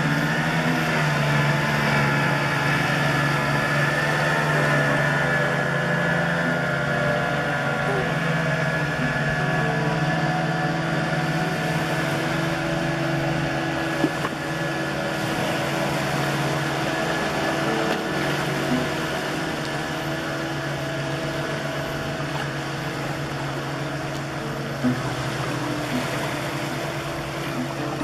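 Boat motor running steadily, a continuous hum made of several held tones, with two short clicks about halfway and near the end.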